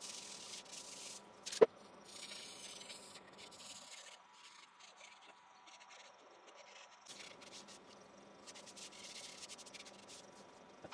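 Soft rubbing as a gloved hand wipes wet dye over the thin sycamore bowl, in spells of short strokes. A single sharp click about a second and a half in.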